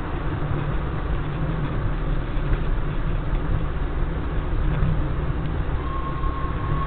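Steady road and engine noise of a car driving on a city road, heard from inside the cabin: a constant low rumble with tyre hiss. A faint thin steady tone comes in near the end.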